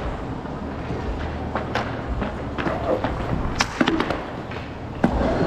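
Roller hockey play: skate wheels rolling on the rink surface with a steady low rumble, broken by several sharp clacks of sticks and puck, the loudest a little past the middle and just before the end.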